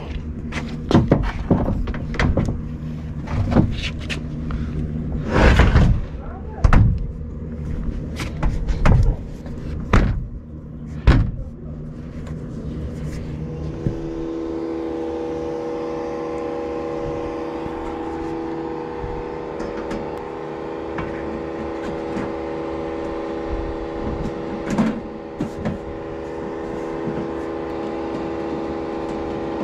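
Scattered knocks and clatter of handling, then about halfway through a machine starts and runs with a steady, even hum.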